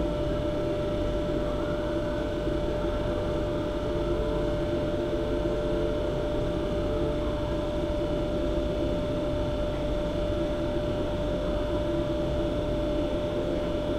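A steady machine hum and rushing noise with one constant tone, unchanging throughout.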